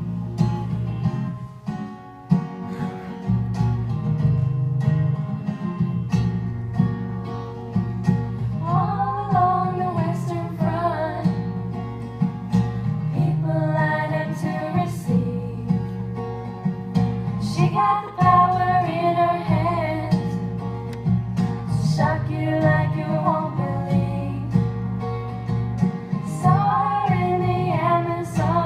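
A song played on acoustic guitar and other plucked strings, with a voice singing phrases from about eight seconds in.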